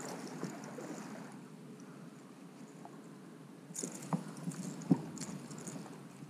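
Water lapping and sloshing around a plastic fishing kayak, with scattered knocks and clicks of handling against the hull in the second half, the sharpest one about five seconds in.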